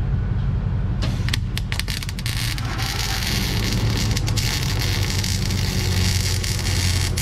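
Arc welding on steel, welding up cracked welds on a Nodwell snowcat's bed. The arc strikes with a few short sputters about a second in, then settles into a steady crackling hiss from about three seconds in, over a steady low engine hum.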